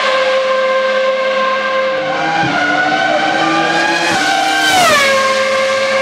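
Ferrari Formula 1 car engine running at very high revs on the straight. Its pitch climbs through the middle, then falls steeply about five seconds in, at the loudest point, as the car passes close by.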